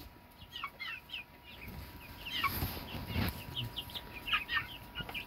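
A group of young chickens peeping, with many short high chirps overlapping and following one another.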